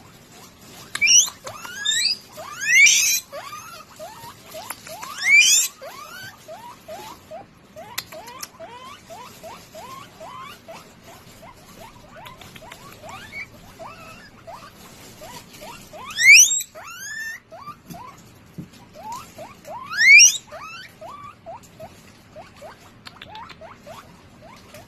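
Guinea pig wheeking: a steady run of short rising squeaks, about three a second, broken by loud, long whistles that sweep sharply upward, four in the first few seconds and two more later.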